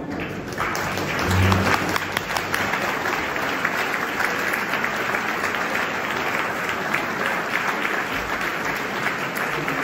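Audience applauding with steady clapping in a reverberant hall.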